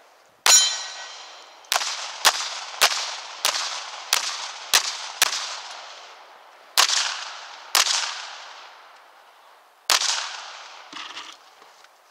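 Eleven handgun shots in uneven strings, a few quick pairs and then slower single shots, each trailing off in a long echo; the first carries a short ringing tone. A few faint clicks follow near the end.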